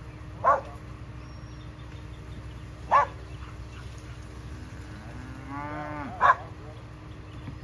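Cattle mooing: three short loud calls about three seconds apart, with a longer call rising in pitch just before the last one.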